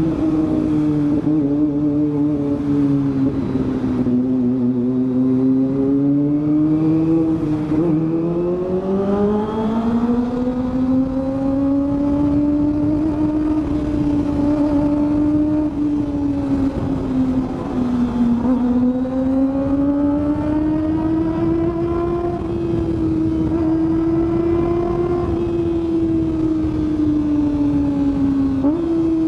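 Kawasaki ZX-25R's 250 cc inline-four running at riding speed through an aftermarket Villain exhaust, its pitch slowly falling and rising with the throttle, with a quick jump in revs near the end. Heard from the rider's helmet.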